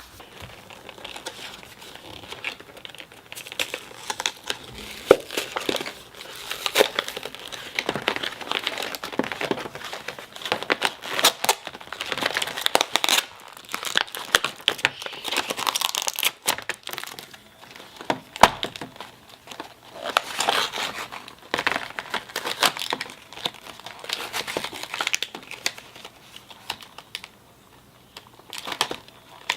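Toy packaging being crinkled, crackled and torn open by hand, in irregular rustling handfuls with sharp snaps.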